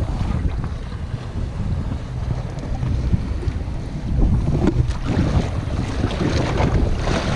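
Wind buffeting the microphone over choppy open sea, with waves splashing against the stern of a small boat; the splashing comes up louder about five and seven seconds in.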